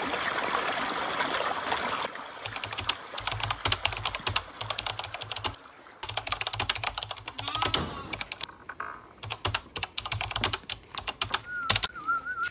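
Water rushing along a narrow irrigation channel, then from about two seconds in a rapid run of keyboard-typing clicks, as an added typing effect under on-screen text. A few short bird chirps come in near the end.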